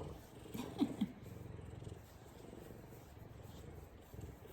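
F2 Savannah cat purring steadily and loudly, a contented purr, with a brief pitched sound about a second in.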